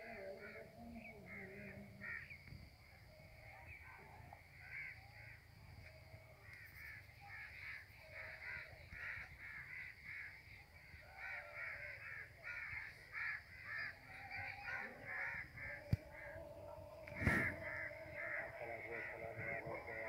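A flock of crows cawing: many short, overlapping caws, thickest in the second half, with one sharp louder burst about three seconds before the end.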